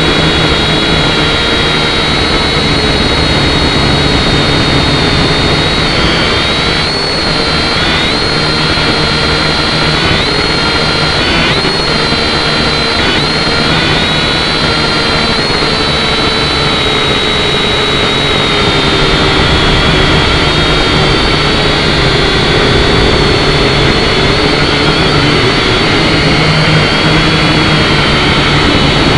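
Swann QuadForce quadcopter's electric motors and propellers whining, heard close up through the drone's own camera microphone. The whine shifts up and down in pitch several times from about six seconds in, then holds steadier and slightly louder near the end.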